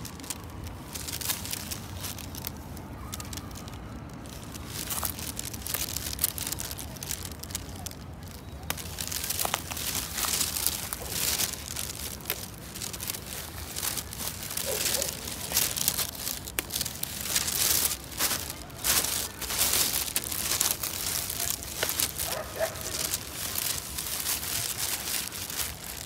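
Leaves and twigs of a Siamese cassia (khi lek) shrub rustling, crackling and snapping as shoots are picked by hand. The crackles come thick and fast from about nine seconds in.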